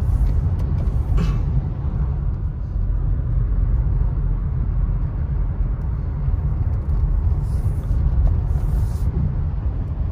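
Steady low rumble of a car driving on a wet, slushy road, heard from inside the cabin: tyre and road noise with the engine under it. Two brief higher hisses come about three-quarters of the way through.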